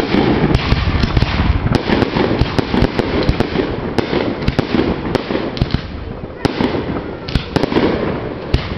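Aerial fireworks bursting overhead in quick succession: a continuous crackle broken by many sharp bangs.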